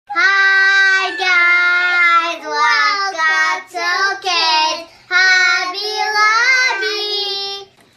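A child singing a short unaccompanied melody, a single voice in long held notes broken into phrases.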